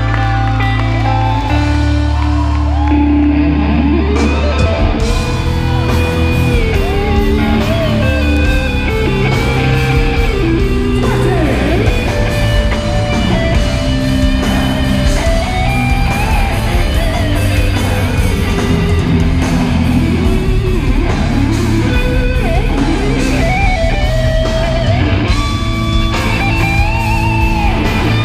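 A heavy metal band playing live, loud through the venue's PA and heard from within the crowd. Held low notes open the passage. From about three seconds in, an electric guitar lead with bending, gliding notes plays over bass and drums.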